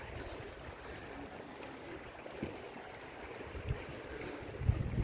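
Wind buffeting the microphone: an uneven low rumble that grows stronger near the end.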